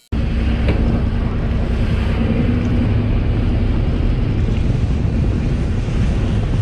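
Fishing boat running at speed, its engine droning steadily under heavy wind buffeting on the microphone and water rushing past the hull.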